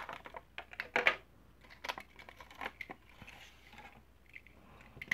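Clear plastic blister pack being pulled off its cardboard backing card: plastic crinkling and crackling, with sharp snaps at the start and about a second in, then softer scattered crackles.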